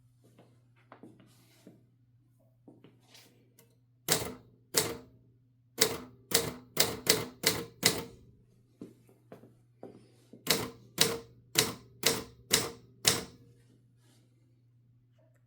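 1969 Adler J5 manual typewriter being typed on: sharp typebar strikes in quick runs, about eight in one burst and six in another, after a few seconds of faint key clicks.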